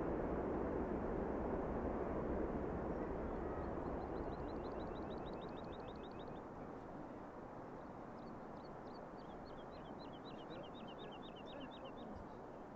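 Birds calling: a run of rapid trilled notes about four seconds in and another near the end, over short high chirps repeating about twice a second. Beneath them a steady rushing noise grows quieter.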